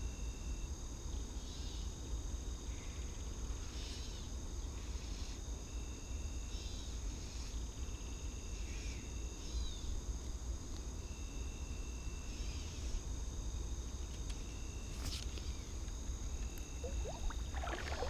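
Creek-side outdoor ambience: a steady high-pitched insect drone with short, evenly pitched calls repeating every few seconds, over a low rumble.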